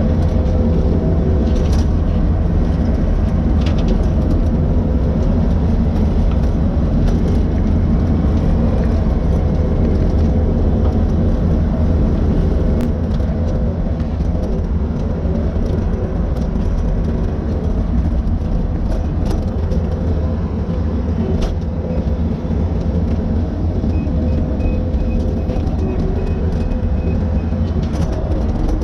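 Skid steer engine running steadily at working speed, driving a bushhog that is cutting brush and small trees.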